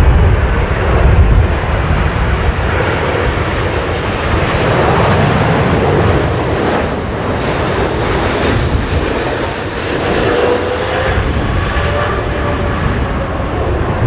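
Jet engine noise from a Boeing 777 airliner on final approach: a heavy low rumble at first, settling into a steady broad engine noise as it flies past. Faint whining tones glide slightly in pitch near the end.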